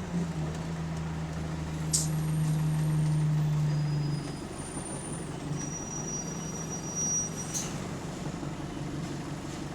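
Bus engine heard from inside the saloon as a steady drone, which drops away about four seconds in. Two short sharp hisses or clicks come at about two seconds and again near the end, with a thin high whistle before the second.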